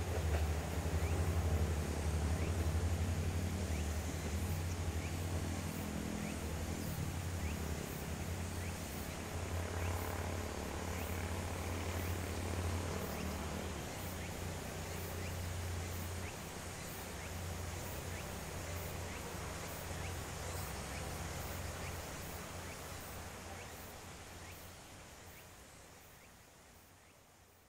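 KiYa 95 track-inspection diesel railcar's engine running with a low hum as it pulls away, fading steadily. Insects chirp in a high, even pulse throughout.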